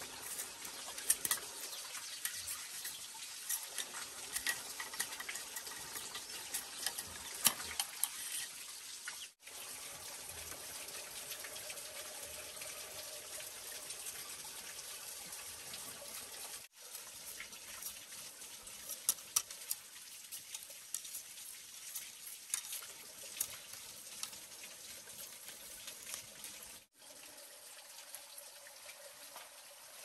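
Cleaver shaving and splitting thin bamboo strips: a steady rasping hiss with scattered sharp ticks as the blade works along the bamboo, breaking off briefly three times.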